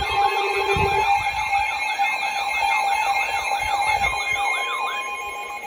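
Electronic siren in a fast yelp, its pitch rising and falling about three times a second over steady high tones. The yelping stops shortly before the end, as a steady single-pitch tone sounds briefly.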